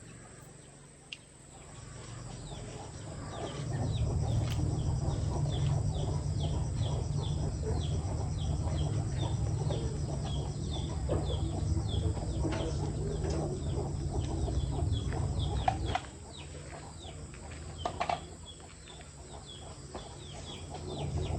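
Chickens calling: a long run of short, high, falling peeps, several a second, over a low rumble that stops about 16 seconds in.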